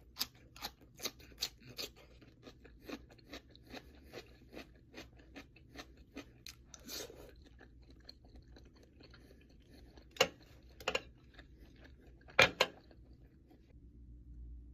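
A person chewing crunchy seaweed close to the microphone. Quick crunches come about three a second at first, then soften into lighter chewing, with three louder sharp crunches near the end.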